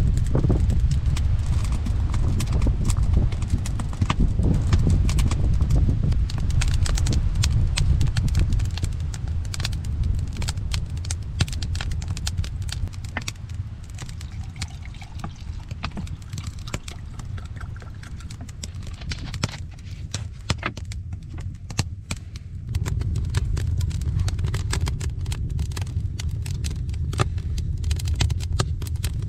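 Wood fire crackling in an earthen fireplace, with frequent sharp, irregular pops over a low rumble. The rumble fades for a stretch in the middle and comes back near the end.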